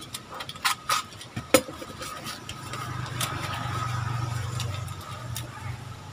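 Cardboard wrapping and packing tape being picked at and torn open by hand, with a few sharp cracks in the first couple of seconds. A low hum swells and fades through the middle.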